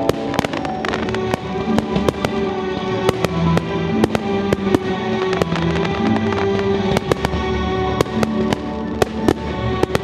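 Fireworks display: aerial shells bursting in irregular sharp bangs, several a second, over music playing.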